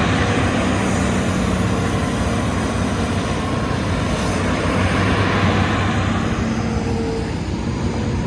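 Hitachi Zaxis excavator's diesel engine running steadily at high throttle, a buzzing drone.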